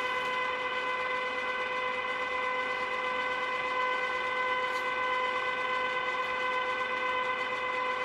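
A small electric motor in a chocolate waterfall fountain machine gives a steady, high-pitched whine at one unchanging pitch as it drives the flowing chocolate.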